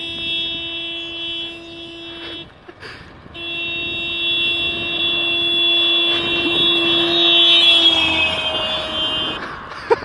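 Car horn held in two long blasts from a passing car, the first about two and a half seconds, the second about six. During the second blast the horn's pitch drops as the car goes by (the Doppler effect), with tyre and engine noise swelling as it passes.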